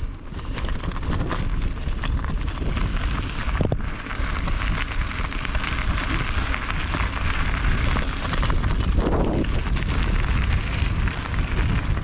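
Wind buffeting the microphone over the crunch and rattle of 50 mm Goodyear Connector 700c gravel tyres rolling on a loose, stony gravel road.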